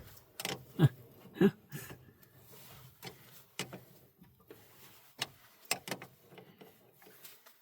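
Irregular metal clicks and light knocks of hand tools and hardware being worked at the battery ground connection, as a nut is fastened on the extra ground cable.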